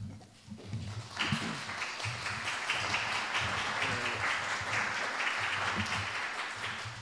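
Audience applauding: clapping breaks out about a second in, holds steady, and dies away near the end.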